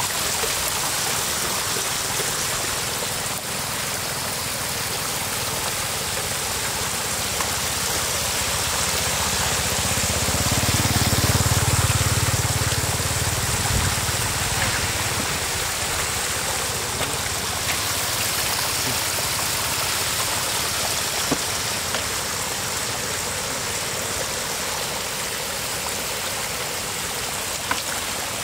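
Floodwater running steadily over the eroded edge of a bank and through the shallows. A low rumble swells and fades between about ten and fourteen seconds in.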